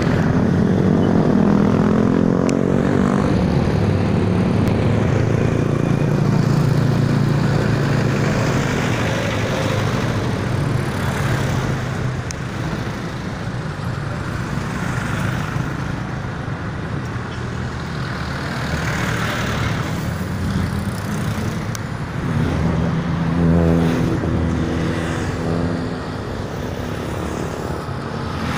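Road traffic: engines of passing motor vehicles under a steady traffic hiss, loudest near the start and again about three quarters of the way through.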